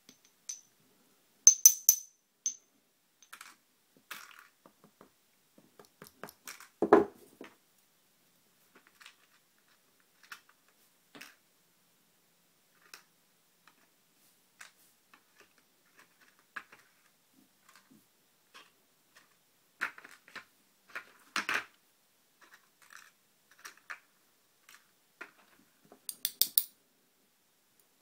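Small metal lock parts clicking and clinking as a pin-tumbler lock cylinder is taken apart and its driver pins removed: scattered sharp clicks, a few ringing metallic tinkles like small pins dropping onto a hard surface, and a louder knock about seven seconds in.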